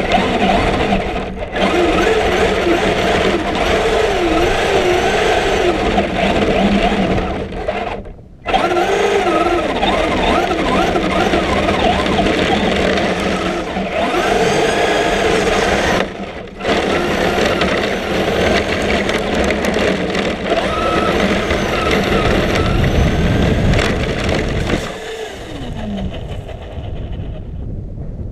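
Electric motor and gear drivetrain of a Traxxas radio-controlled car running, heard from a camera mounted on the car as it drives; the whine rises and falls with the throttle. It cuts out briefly twice and winds down near the end.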